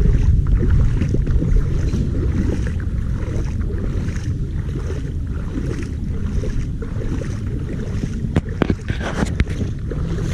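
Wind buffeting the microphone, a heavy, fluctuating low rumble with a thin hiss above it, broken by a few sharp clicks near the end.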